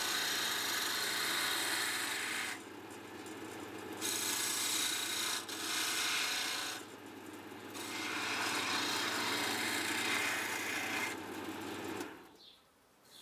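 GMC ML100 wood lathe running while a skew chisel cuts a spinning wood blank: three long spells of scraping, hissing cutting with short pauses between, over the steady hum of the lathe's motor. The chisel has not been sharpened. The motor hum stops about twelve seconds in.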